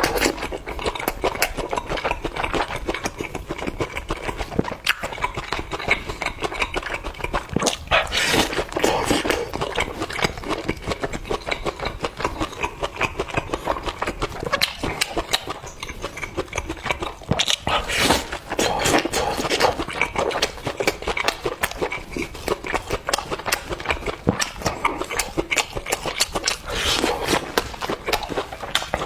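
Close-miked eating sounds: chewing and mouth noises, with many small, irregular clicks and smacks.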